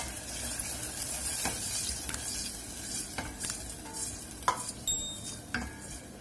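Soy sauce sizzling in hot butter with garlic and ginger in a stainless steel saucepan while a wooden spoon stirs it. The spoon knocks sharply against the pot a few times, loudest about four and a half seconds in.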